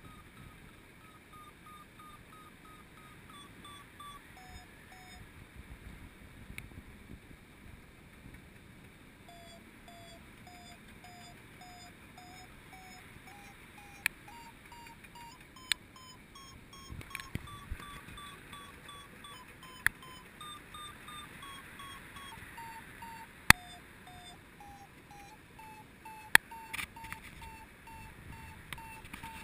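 A paragliding variometer beeping in quick short pulses, its pitch stepping up and down with the climb rate: the glider is climbing in lift. A few sharp knocks cut in during the second half.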